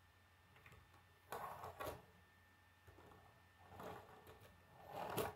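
Plastic K'nex racing car handled and set down on a wooden tabletop: its parts and wheels rattle and bump in three short bursts, the last ending in a sharp knock.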